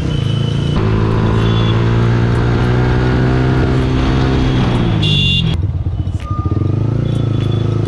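Yamaha R15S 155 cc single-cylinder four-stroke engine through a loud aftermarket exhaust, pulling steadily under way. About five and a half seconds in, the throttle closes and the exhaust note drops, turning uneven before settling into a lower, steady run. A short horn toot sounds just before the throttle closes.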